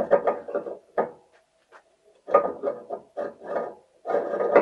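Metal parts of a small cast-iron feed pelleting machine clinking and scraping as they are fitted together by hand, in three short rattling bursts.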